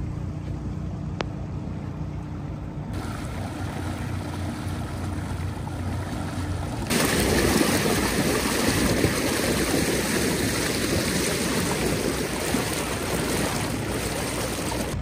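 Water rushing and splashing along the hull as a small tri-hull boat's bow pushes through the water under way, with a low rumble beneath. The splashing becomes louder and fuller about seven seconds in.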